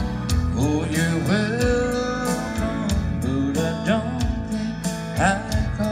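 Live country band music: electric guitar over a steady beat, the lead notes sliding up in pitch.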